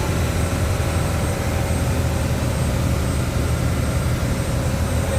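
Fishing boat's engine running steadily under way, a constant low hum.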